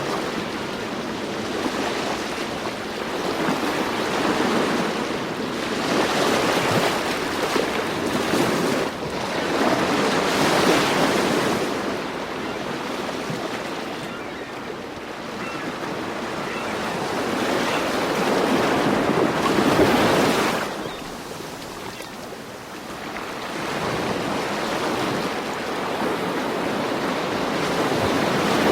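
Rushing water, a steady noisy wash that swells and eases every several seconds.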